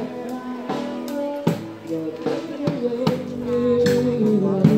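Live street music from buskers with a drum kit: drum strikes over a melody of held notes, growing louder in the second half.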